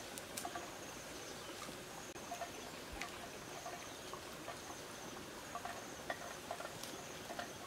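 Insects trilling in short high-pitched bursts that repeat every second or so, over light rustling and footfalls of someone walking through grass and brush.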